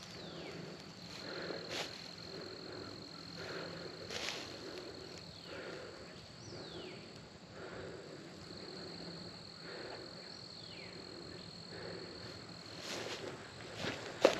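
Footsteps swishing through grass and brush at a steady walking pace, about one step a second, as a hunter sneaks up on turkeys. Behind them an insect trills steadily on a high note, stopping and starting, and a few short falling whistles sound a couple of seconds apart.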